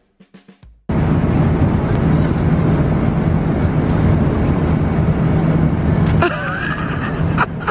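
Steady airliner cabin noise in flight, engine and air noise heard inside the cabin with a low hum. It starts abruptly just after the last beats of a drum jingle, about a second in, and drops somewhat about six seconds in, where a child's voice is heard.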